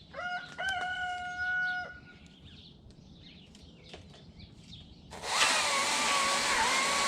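A rooster crows once near the start. About five seconds in a chainsaw starts cutting, loud and sustained, its pitch wavering as it works through the wood.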